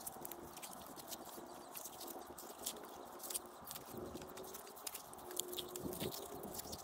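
Small hand trowel digging and scraping through wet, gritty beach mud while clamming, with many small crunches and clicks.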